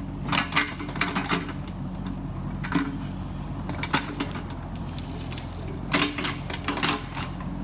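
Kubota KX71-3 mini excavator's diesel engine running steadily, with sharp metallic clanks and knocks from the machine's working parts scattered through, several close together about half a second to a second and a half in and again around six seconds in.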